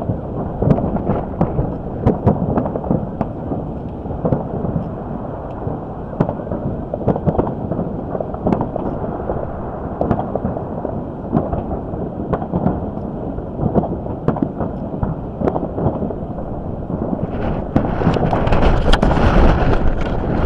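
Fireworks show: a dense, unbroken run of booms and crackling bursts in quick succession. Wind buffets the microphone, growing louder and hissier in the last few seconds.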